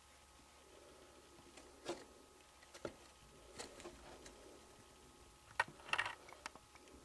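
Sparse light clicks, knocks and scrapes of a hand moving inside a wire chinchilla cage around a wooden hide, the loudest a short cluster near the end, over a faint steady hum.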